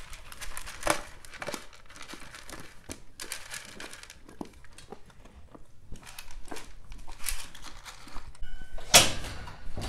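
Horse eating grain pellets from a feed pan: irregular crunching and crackling of chewing and of its muzzle rummaging through the pellets, with a louder scuffing noise near the end.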